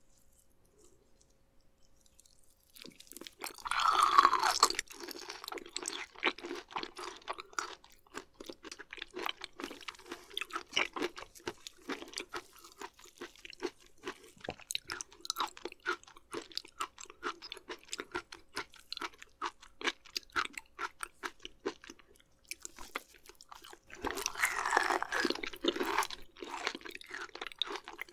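Close-miked wet chewing of raw beef offal, with many short crunchy, squishy clicks. Two louder bites come about four seconds in and again near the end, each followed by steady chewing.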